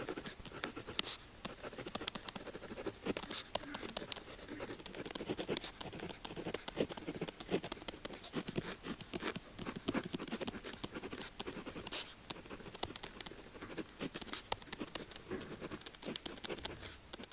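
Pen tip writing and scratching across paper in continuous strokes, with frequent small taps and clicks of the pen.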